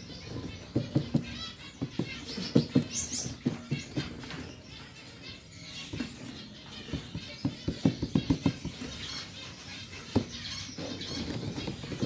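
Gouldian finches moving about in a plastic shipping box: clusters of light taps and knocks as they hop and land on the wooden perches and plastic floor, with a few soft high chirps and a brief high call about three seconds in.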